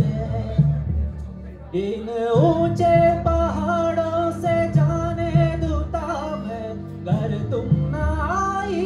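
A man singing a slow Hindi film song live into a microphone, with held and gliding notes, over instrumental accompaniment with a steady low beat.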